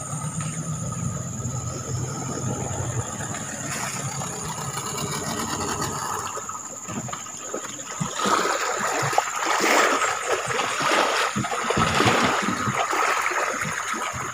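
Small boat's outboard motor running as it passes along the river, with water noise. From about eight seconds in, louder scraping and knocks come from close by.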